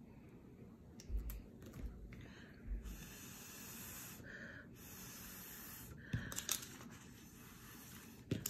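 Breath blown through a plastic drinking straw onto drops of food colouring on paper: several long hissing puffs of air with short pauses between them. A few soft knocks come in the first few seconds.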